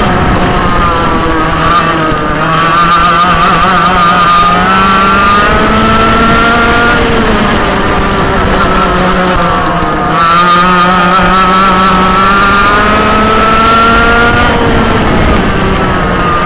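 Dirt kart engine at racing speed, heard from on board: its pitch climbs for about five seconds down a straight, drops off for a corner, then climbs again and drops near the end. A steady rush of wind and track noise runs underneath.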